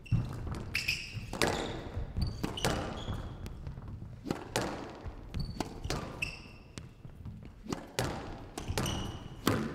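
Squash rally: the ball is struck by rackets and smacks off the walls in sharp knocks every second or so, while the players' shoes squeak briefly on the court floor.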